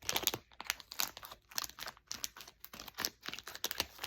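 Crinkly packaging being handled and pulled open: a rapid, irregular run of crackles and rustles.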